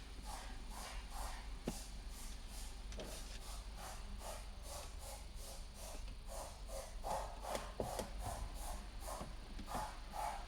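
Short scraping, rubbing strokes in a steady rhythm of about three a second, with a few sharper clicks, from hand work on a car's dashboard trim and fasteners.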